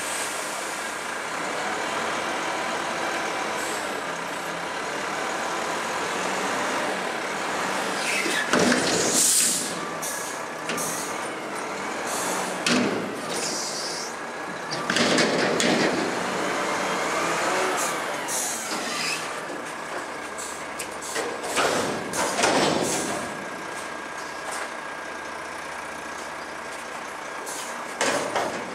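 Garbage truck's diesel engine running steadily, broken by several loud, sharp hisses of compressed air from its air brakes.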